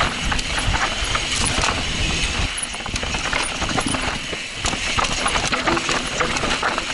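Intense Tracer mountain bike descending a rocky dirt trail: tyres on dirt and loose rocks with a dense, irregular clatter of clicks and rattles from the bike. A low rumble is strong for the first couple of seconds, then drops away.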